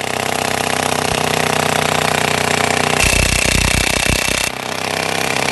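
Makita DTW1001 18 V cordless 1/2-inch impact wrench hammering continuously on a bolt whose nut is held with a spanner, a fast steady rattle of blows. From about three seconds in, the hammering turns deeper and heavier for about a second and a half, then returns to its earlier sound.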